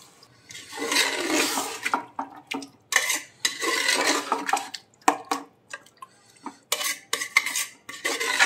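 Metal ladle stirring a watery mutton and lentil curry in an aluminium pressure cooker: a wash of sloshing liquid as water goes in over the first two seconds, then repeated scrapes and clinks of the ladle against the pot's sides.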